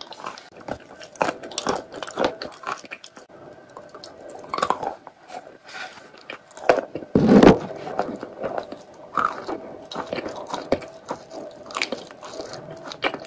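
Close-miked biting and chewing of a lump of chalk: repeated crisp crunches and crumbling, with one louder, longer noise about seven seconds in.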